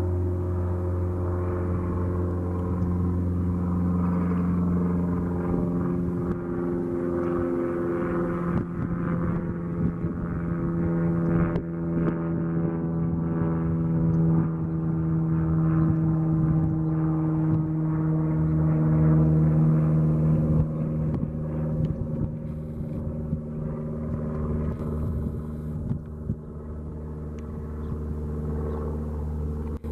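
Cessna 172S's four-cylinder Lycoming engine and propeller running with a steady drone, a little louder about two-thirds of the way through and then easing off.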